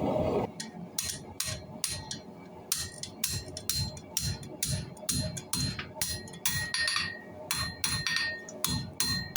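Hand hammer striking hot spring steel on an anvil, about two to three blows a second, with the anvil ringing after many of the strikes. A steady rushing noise cuts off about half a second in.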